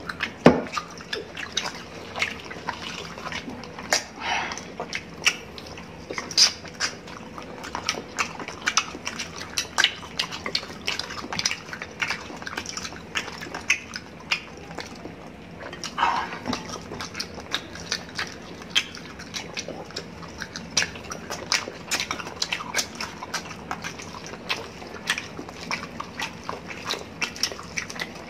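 Close-up mouth sounds of people eating roast chicken and rice by hand: wet chewing and lip smacks, many irregular clicks.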